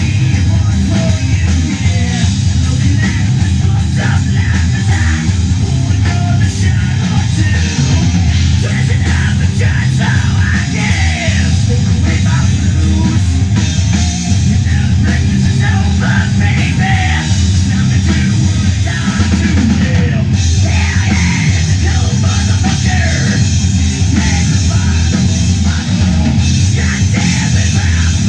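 Rock band playing live and loud: electric guitars and drum kit.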